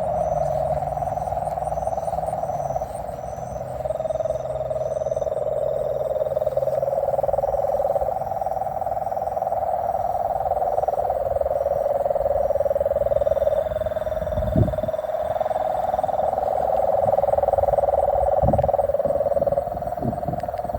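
A dense, continuous chorus of calling frogs, its pitch shifting up and down in steps, with a faint, even high-pitched pulsing chirp above it. A few low thumps come in the second half.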